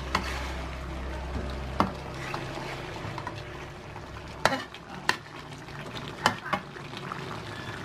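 Metal spatula stirring cooked chicken feet and carrots in a wok, with about six sharp clinks of metal against the pan over a faint sizzle of the sauce.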